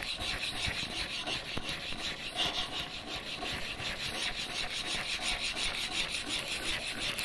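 Steel chisel bevel scraping back and forth on a wet 1200-grit diamond sharpening plate, a steady rhythmic rubbing: the final, finest honing stage, worked until a fine burr forms.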